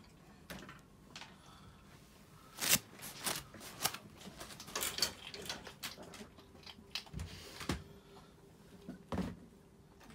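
Irregular clicks, knocks and rattles from someone handling wire dog crates, with light rustling in between. The sharpest knock comes between two and three seconds in, and the knocks bunch together for a couple of seconds after it.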